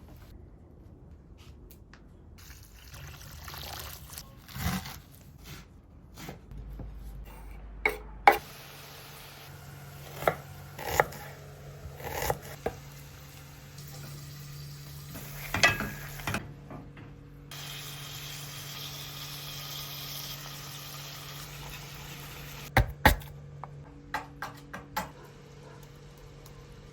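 A run of cooking sounds: water running and pouring, stirring, and utensils knocking and clinking against pots and pans, with sharp knocks scattered throughout and abrupt changes from one sound to the next.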